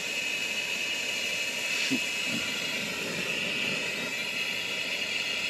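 Air-acetylene torch with a number 11 tip burning steadily, its flame played on a copper sweat fitting to melt solder into the joint; a steady even hiss.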